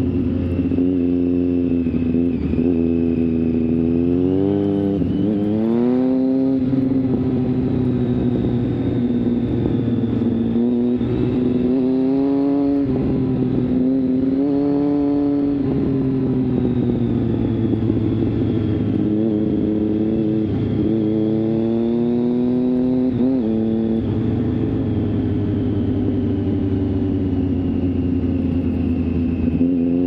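Triumph Street Triple 675's inline three-cylinder engine through an Arrow 3-2 exhaust with dB-killer, ridden hard: the revs climb and drop back several times as the rider accelerates, shifts and rolls off the throttle.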